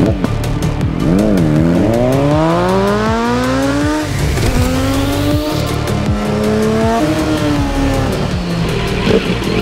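Kawasaki Z900's inline-four engine through a Zard exhaust, revving as the bike accelerates: its pitch climbs for about three seconds, drops at a gear change about four seconds in, climbs again and falls away near the end. Music with a steady beat runs underneath.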